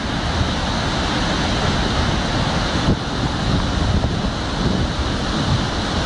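The Narva waterfall: river water pouring over a wide stepped rock ledge in a steady, loud rush, with wind buffeting the microphone.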